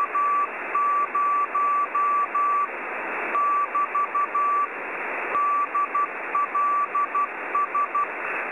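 Morse code (CW) signal received from the QO-100 geostationary amateur satellite's narrowband transponder through a web SDR. A steady beeping tone is keyed on and off in dots and dashes over band-limited receiver hiss, with two short breaks in the keying.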